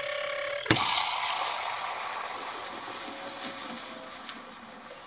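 Bialetti Mukka Express cappuccino moka pot: a steady whistling tone breaks off under a sudden burst just under a second in, as the pressure valve opens and coffee and steam blast up into the milk. A hissing, gurgling froth follows and slowly fades.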